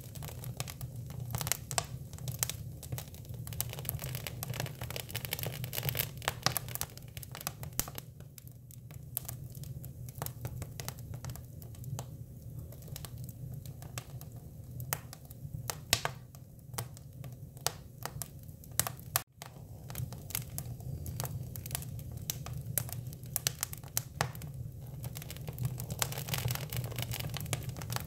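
Hinoki cypress wood fire crackling, with frequent irregular sharp pops and snaps over a steady low hum. The sound breaks off for a moment about nineteen seconds in.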